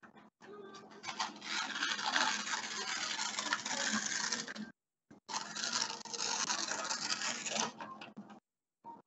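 Sheet of paper being torn by hand into a strip, two long crackling tears of about three seconds each, the second starting about five seconds in.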